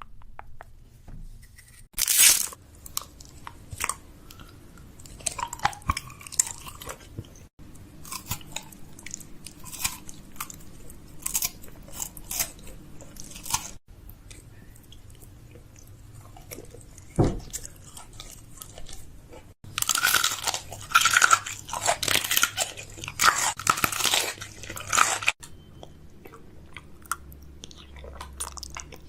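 Close-miked crunching and crackling in irregular bursts, with a dense, louder stretch of it lasting several seconds about twenty seconds in.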